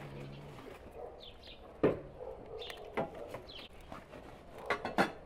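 A few sharp cracks of a cat crunching a cooked chicken bone, the loudest about two seconds in and just before the end, with small birds chirping steadily in the background.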